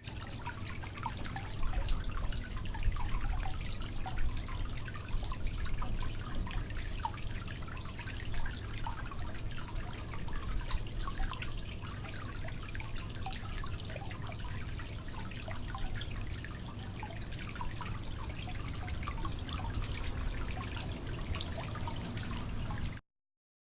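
Running water with dense dripping and splashing, steady throughout, cutting off abruptly near the end.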